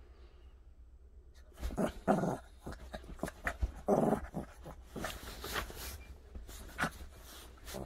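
Small dog growling in play while mouthing its owner's hand, in a series of short growls starting about a second and a half in, loudest around two and four seconds.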